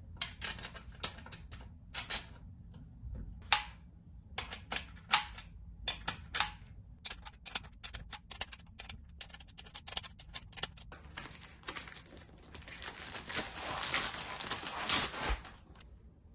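Irregular metal clicks and clinks of hardware being handled and screwed by hand into a steel standing-desk frame, with a denser rattling, scraping stretch of a few seconds near the end.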